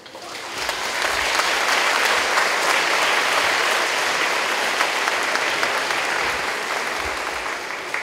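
Audience of children and adults clapping in a school gym. The clapping swells over the first second, holds steady, then eases off near the end.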